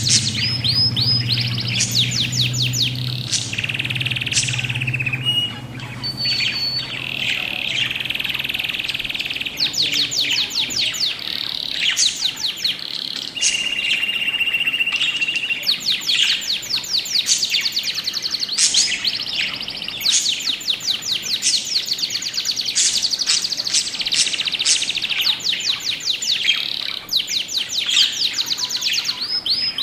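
Budgerigars chirping continuously in rapid trills of repeated notes, broken by a few short steady whistles. A low hum sits underneath during the first third and then fades out.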